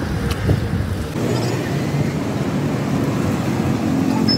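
Steady road traffic noise with an engine's low hum, and a light knock about half a second in.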